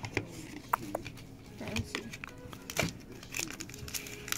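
Trading cards being handled and set down on a tabletop pile: scattered light clicks and soft rustles of card stock.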